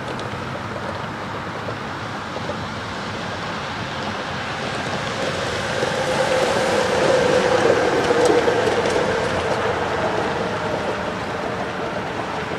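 Steady roar of road traffic, which swells for a few seconds in the middle as a louder vehicle passes, then eases off.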